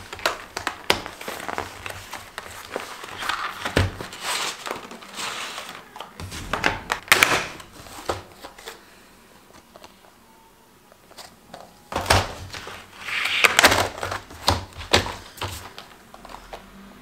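Clear plastic blister packaging of a gouache paint set crinkling and clicking as it is handled, with paint tubes rattling in their plastic tray and light knocks on a wooden table. Two busy stretches of handling, with a quieter pause in the middle.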